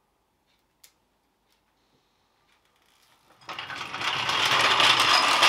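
Hydraulic trolley jack letting down the rear of a Land Rover Discovery 2: a couple of faint clicks as the handle is turned, then from about three and a half seconds in a loud mechanical rattling and grinding as the jack lowers and the truck settles onto its own weight.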